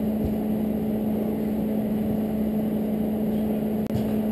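A steady hum with one constant low tone over a dull rumble. It drops out for an instant just before the end.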